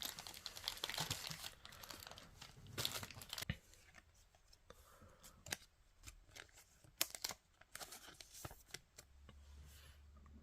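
Faint crinkling and rustling of plastic card sleeves and wrappers being handled. It is busiest in the first few seconds, then gives way to scattered soft clicks and rustles.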